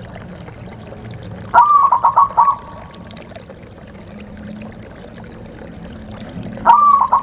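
Zebra dove (perkutut) cooing twice, about five seconds apart, over a steady hiss. Each phrase is about a second long: a rising first note, then a quick run of short coos.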